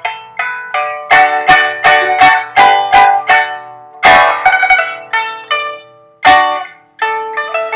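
Solo pipa playing a melody in a run of plucked notes, each ringing and fading, with a fuller strummed chord about four seconds in.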